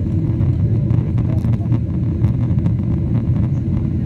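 Steady low rumble of an airliner cabin in flight, the engines and rushing airflow heard from a window seat during the descent to land.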